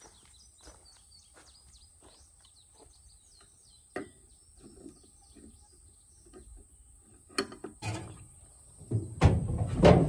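Outdoor rural ambience: birds chirping and a steady high insect drone, with a sharp knock about four seconds in and a couple more near the three-quarter mark. Near the end, loud close rustling and thumps take over.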